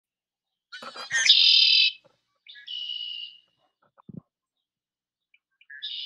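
A bird giving three short, harsh, buzzy calls. The first, about a second in, is the loudest, the second comes about a second later, and the third starts right at the end. A faint low thump comes between the second and third calls.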